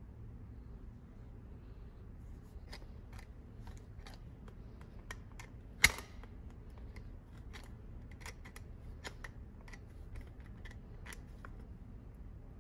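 Irregular small metallic clicks and taps from handling an old hand drill and working pliers on it, with one sharp, louder knock about six seconds in.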